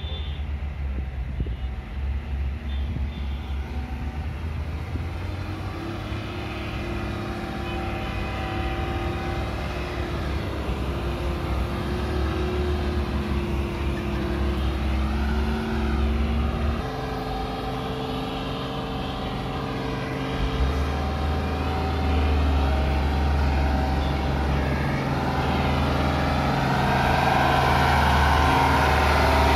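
The diesel engine of a loaded Eicher ten-wheel dump truck pulling away on a muddy track. Its pitch climbs slowly, drops once about halfway through, then holds steady, and it grows louder near the end as the truck draws close.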